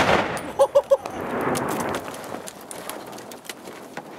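Aftermath of a large tannerite explosion: the blast's rumble dies away over the first couple of seconds while falling debris patters and clicks down. About a second in come three quick pitched blips, evenly spaced.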